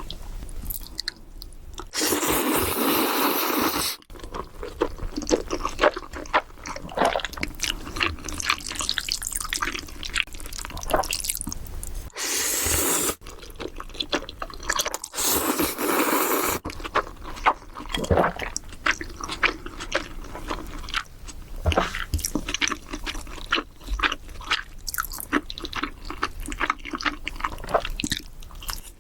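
Close-miked eating of black bean noodles (jajangmyeon): continuous wet chewing and mouth smacking in quick clicks, with three long loud slurps, about two seconds in, around twelve seconds in, and around fifteen seconds in.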